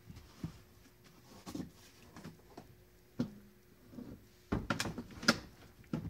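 Scattered knocks and clicks of hands handling the plastic HVAC air box housing, with a cluster of louder knocks about four and a half to five and a half seconds in, over a faint steady hum.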